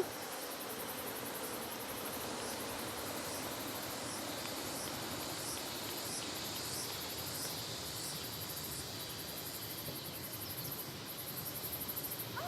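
Insects chirring steadily in a high-pitched, pulsing drone, over a steady background hiss.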